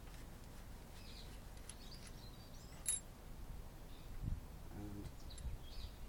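Faint metallic ticks and clicks from the threaded top cap of a single-speed freewheel being unscrewed by hand, with one sharp click about three seconds in.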